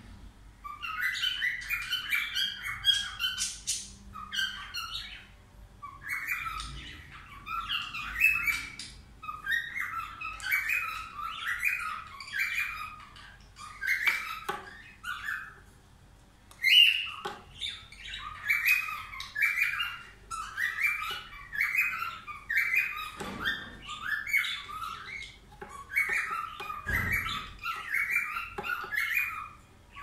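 Yellow budgerigar chattering, with rapid runs of short chirps and squawks in phrases a few seconds long and brief pauses between them. There are a couple of soft low thumps in the second half.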